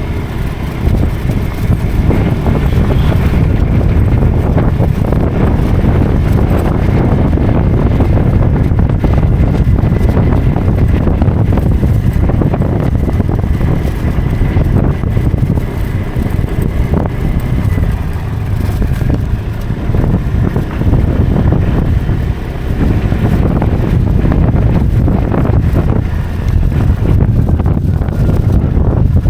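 Motorcycle engine running under way on a road ride, with wind rushing over the microphone.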